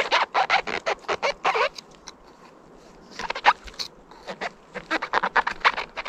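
Knife cutting wild oyster mushrooms off wood: quick rasping, crunching scrapes in two runs, a pause between them about two seconds in.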